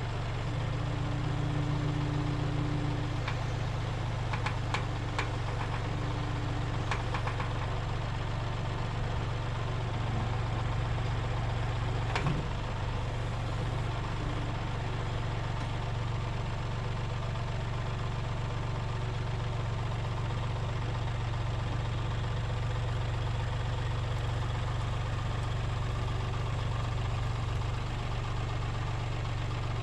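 An engine running steadily at an even speed, with a few light clicks a few seconds in and one sharper knock about twelve seconds in.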